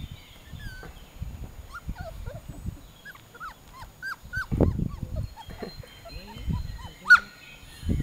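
Young puppies whimpering, a scatter of short high squeaks one after another, with one louder, sharper squeak near the end.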